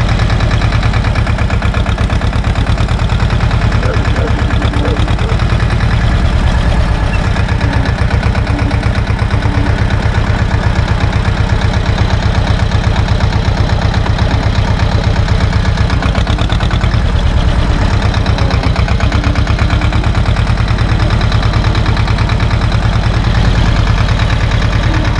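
Same tractor's diesel engine running steadily with an even, rhythmic beat as the tractor drives slowly along.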